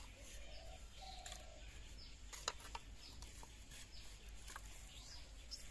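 A steel ladle clinking and scraping against a metal wok and pot while curry is served out, with a sharp clink about two and a half seconds in and a few softer ones. Birds chirp in the background.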